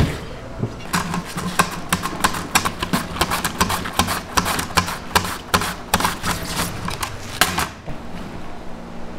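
Zucchini being julienned on a plastic mandoline slicer: quick rasping strokes, about four a second, that stop near the end.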